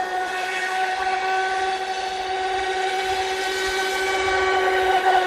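2000 kV brushless electric motor of a Feilun FT011 RC speedboat running at speed, a steady high-pitched whine that gets a little louder near the end.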